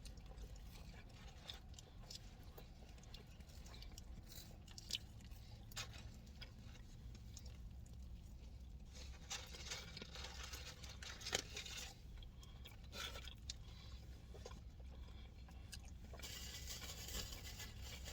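Faint eating sounds: quiet chewing with scattered small clicks and scrapes from handling food and packaging, over a low steady hum.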